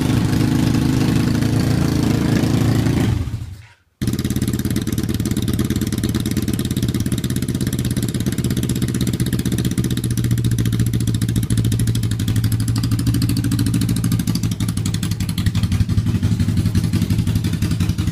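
1981 Suzuki GS450S's air-cooled parallel-twin engine running steadily at idle. The sound fades out about three seconds in, breaks off into a moment of silence at a cut, and then the engine starts up again steady.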